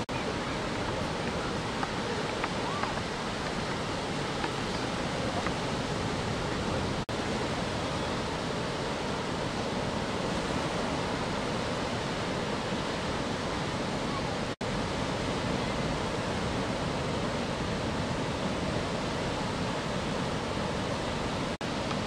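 Steady rushing noise of ocean surf breaking on the beach, broken by three brief dropouts where the footage is cut.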